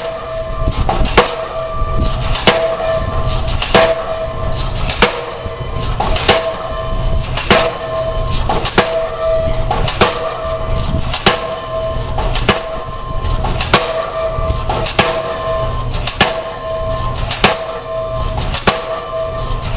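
Pile-driving hammer striking a pile at an even pace, about one blow every 1.25 seconds. A steady machine hum and low rumble run between the blows.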